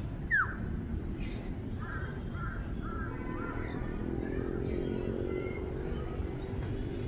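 Birds calling: one sharp call sweeping downward just after the start, then a quick run of short chirps about two seconds in, over a low background rumble.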